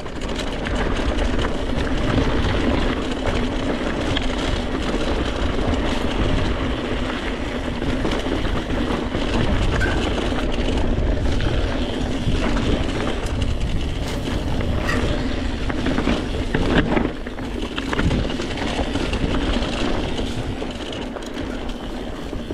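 Mountain bike riding down a narrow, stony singletrack: tyres rolling and crunching over loose rock and gravel, with the bike rattling and knocking over bumps throughout. A sharper knock about 17 seconds in.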